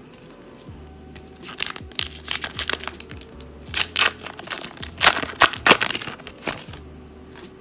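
Foil-lined wrapper of a 2020-21 Upper Deck Series 2 hockey card pack being torn open by hand, crinkling and tearing in a run of sharp crackles that starts about a second and a half in and is loudest a little past the middle.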